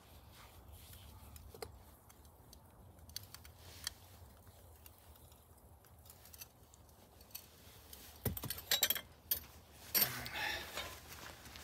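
Scattered light metallic clinks and taps, with a short burst of louder clattering about eight seconds in and another about ten seconds in.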